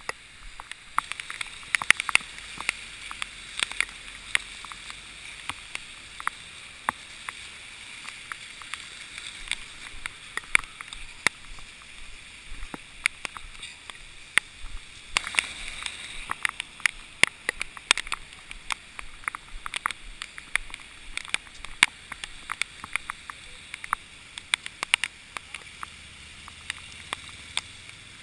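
Handling noise of a hand-carried camera: many irregular sharp clicks and scuffs over a steady hiss.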